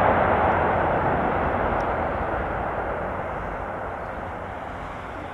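Airbus A380 jet noise during its landing rollout: a steady rushing roar from its four Rolls-Royce Trent 900 engines that fades as the airliner slows and moves away down the runway.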